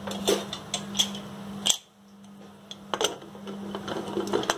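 Aluminium pressure cooker lid being fitted and turned into place: a series of sharp metallic clicks and scrapes, over a low steady hum.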